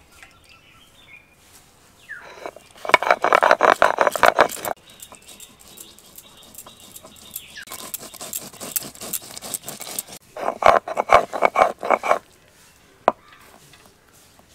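Whole cumin, coriander seeds and dried red chillies being ground into a spice paste, heard as three bursts of dense, rapid clicking and rattling with short pauses between them, and a single sharp click near the end.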